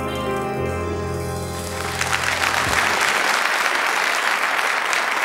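The closing held chord of the song's accompaniment dies away, and about two seconds in a theatre audience starts applauding, the clapping continuing to the end.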